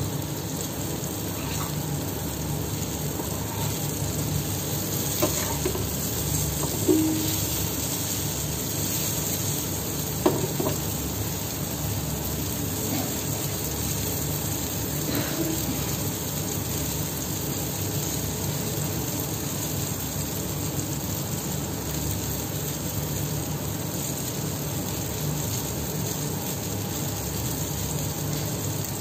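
Eggplant slices sizzling steadily in oil in a steel frying pan over a high gas flame as they crisp and darken. A few sharp clicks of a metal spatula against the pan come about five to ten seconds in.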